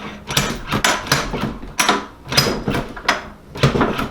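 Quaife sequential gearbox being shifted and turned by hand: a rapid, irregular run of metal clunks and clicks from the shift mechanism and gears. The shifting is stiff, which the builder puts down to a shift detent that is not adjusted right.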